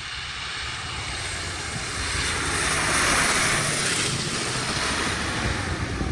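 Boeing B-17 Flying Fortress's four radial piston engines running as it comes in to land, a steady drone that grows louder to a peak about three seconds in and then eases slightly.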